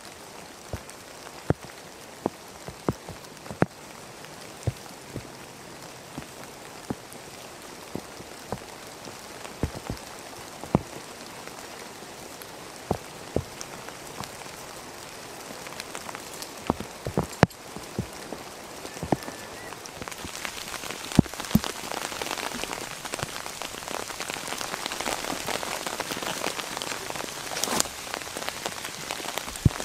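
Steady rain, with single heavy drops hitting sharply every second or so. The rain grows louder and denser in the last third.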